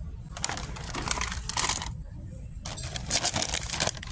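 Plastic cookie packaging crinkling and crackling as it is handled, in two stretches of quick irregular crackles over a low steady hum.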